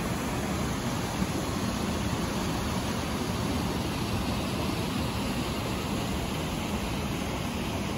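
Rushing stream cascading over boulders: a steady, even rush of water.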